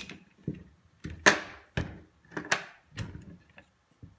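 Hard knocks and clacks of a LEGO-brick AR-15 lower receiver and its small steel trigger being handled and set down on a tabletop: about eight separate knocks, the loudest about a second in.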